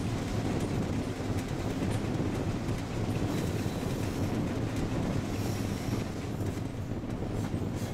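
A diesel train running steadily along the track, heard from on board. There is a constant low engine drone with rumbling wheel and rail noise and a few faint clicks.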